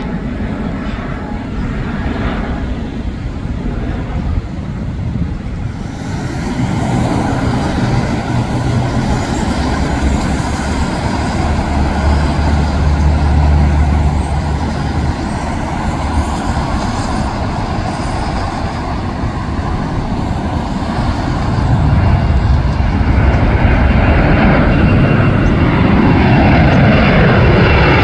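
Jet airliner engines running loud and continuous, a deep rumble that grows louder in the second half; near the end the engine tones slide in pitch as an aircraft passes close.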